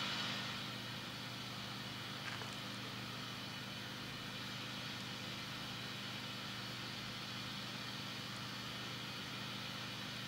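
Guitar amplifier with a high-gain distortion pedal switched on but no note played: a steady low hum with hiss over it, the hiss a little stronger at the start, and a faint click about two seconds in.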